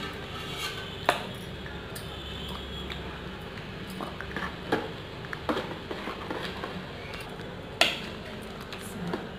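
Metal spoon stirring thick fruit custard in a metal pot, with occasional clinks and scrapes of spoon against pot, the loudest about eight seconds in, over a faint steady hum.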